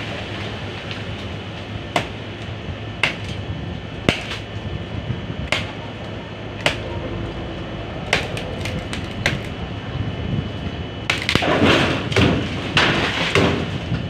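Bolo (machete) chops knocking into a tree branch, one sharp knock every second or so, coming faster around eight to nine seconds in. From about eleven seconds in, leafy branches shake and rustle loudly.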